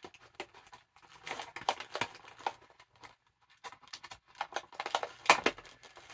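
Cardboard and plastic packaging of a boxed action figure being handled: irregular light clicks, taps and crinkles, with a short lull midway and one sharper click near the end.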